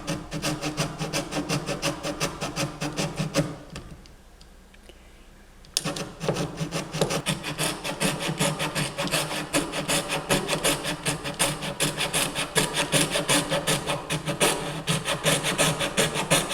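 Hand saw cutting through a piece of wood in quick, even back-and-forth strokes, with a pause of about two seconds partway through before the sawing resumes.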